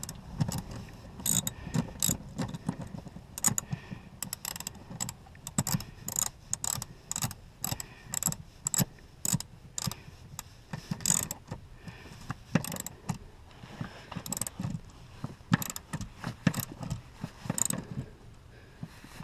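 Hand ratchet with a 14 mm socket clicking in short runs of sharp clicks as a seat-mounting bolt is cranked down and snugged tight.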